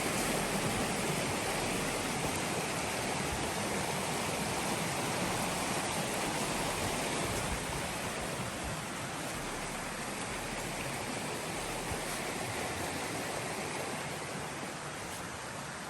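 Waterfall: a steady, even rush of falling water that grows slightly quieter toward the end.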